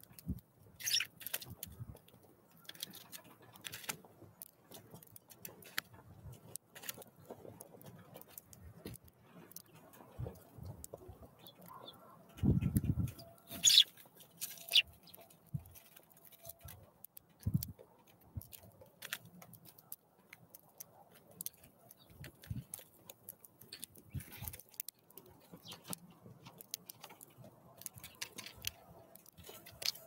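Small birds, a Eurasian tree sparrow and a tit, at a wooden feeder: scattered light taps and pecks on the seed tray, with a louder thump a little after twelve seconds and a sharp click just after it.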